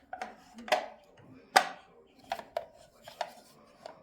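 About seven sharp, irregular clicks and clacks of parts being handled and fitted on a 1966 Necchi Lydia 3 sewing machine, the loudest about a second and a half in; the machine itself is not running.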